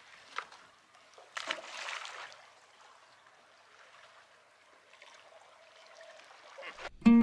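Seawater lapping and trickling among shoreline rocks, with a louder splash about one and a half seconds in.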